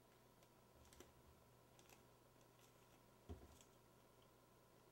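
Near silence with a few faint clicks and a soft knock about three seconds in, from fingers pressing tape onto the edge of a CRT tube's glass face.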